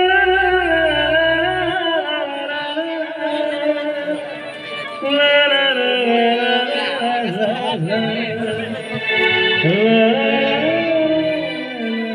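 A man singing a Marathi wedding song (lagna geet), holding long wordless notes that bend and glide in pitch, over musical accompaniment.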